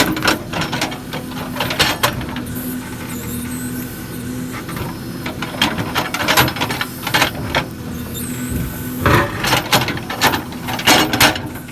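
Case 770 FX backhoe loader's diesel engine running steadily, with frequent sharp metallic clanks and squeaks from its working parts.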